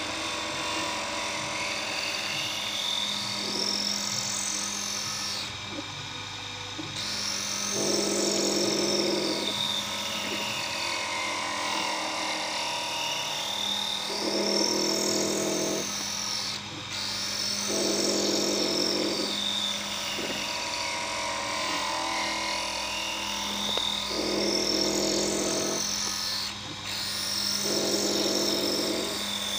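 CNC drill grinder at work: the grinding wheel's motor runs with a steady hum while the stepper motors whine, their pitch rising and falling in a cycle of about ten seconds as the twist drill is turned against the wheel. Louder stretches of a second or two come back every few seconds.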